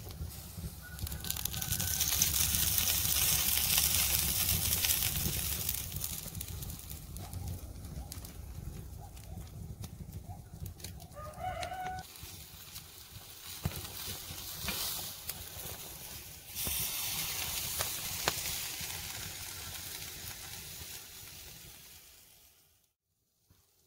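Chicken breast sizzling on a charcoal grill, a hiss that swells and eases, over a low wind rumble on the microphone. A rooster crows once, briefly, about halfway through.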